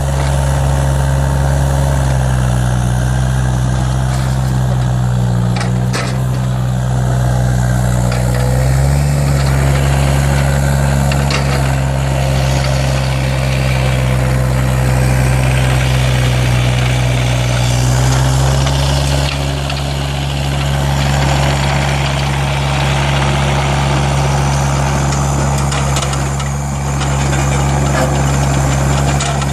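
Hitachi ZX35U mini excavator's diesel engine running steadily, its pitch dropping and rising a few times across the stretch.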